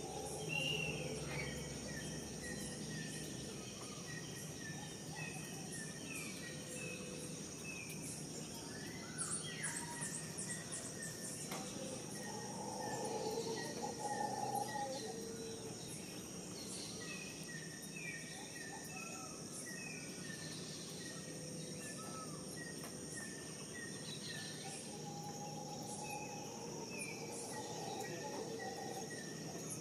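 Tropical outdoor ambience: a steady high-pitched insect drone, with birds giving short chirps over and over and a few lower calls now and then.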